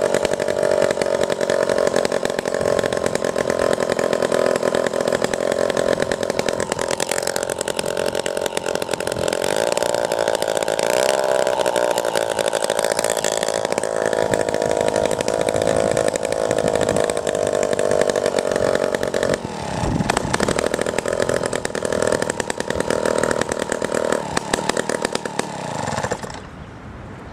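Vintage Homelite 26LCS two-stroke chainsaw running fast and steady, its working governor holding the speed. The pitch dips briefly about twenty seconds in and recovers, then the engine stops near the end.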